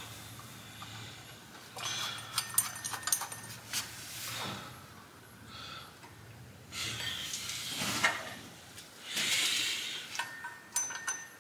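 Light metallic clinks and handling noise as an aluminum water pump pulley and its bolts are fitted by hand onto the water pump hub. The clinks come in a cluster about two to three seconds in and again near the end, with softer brushing sounds between.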